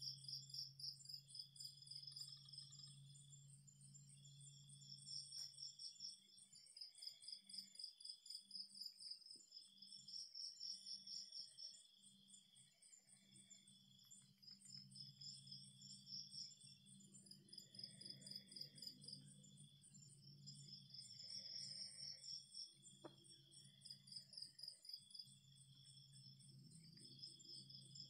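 Night insects, crickets among them, chirping faintly in rapid pulsed trills that come in repeated bouts of a second or two, over a low steady hum.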